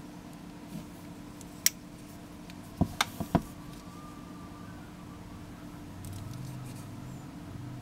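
Handling noise from a soldering iron's rubber power cord and plastic two-pin plug being turned over in the hands: a sharp click about one and a half seconds in and a quick run of three light knocks near three seconds in, over a faint steady hum.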